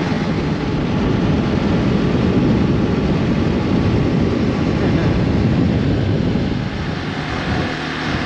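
Hero Xpulse 200 4V single-cylinder motorcycle riding on the road: a steady engine and road noise under a wind rush, easing off somewhat about six and a half seconds in.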